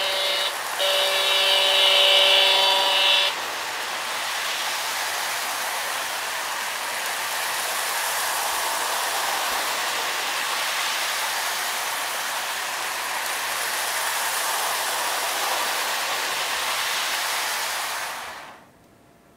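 Lionel NW2 diesel model train: its horn sounds in two blasts, the second about two and a half seconds long, in the first few seconds. Then the locomotive's motor and wheels run steadily on the track until the noise cuts off suddenly near the end as the train stops.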